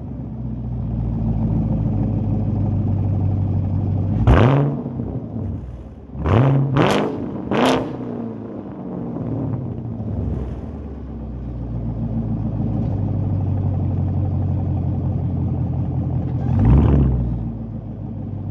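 Chevrolet Camaro LT1's 6.2-litre V8 through a straight-piped AWE Track exhaust idling just after a cold start. It is revved once about four seconds in, three times in quick succession between about six and eight seconds, and once more near the end, each rev rising and falling back to idle.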